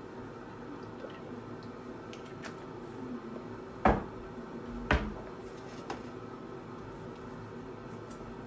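Household objects being handled: two sharp knocks about a second apart, then a lighter one, over a steady hum.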